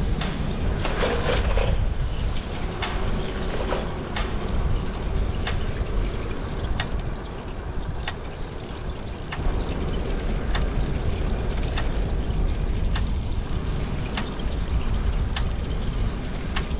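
Wind rumbling on the microphone with rolling road noise while riding, broken by a sharp tick about every second and a third.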